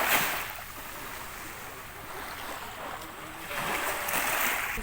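Sea water washing and surging, swelling at the start and again about three and a half seconds in, with some wind.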